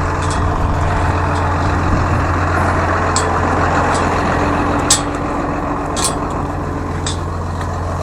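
Tractor engine running steadily, with a few short, sharp clicks over it.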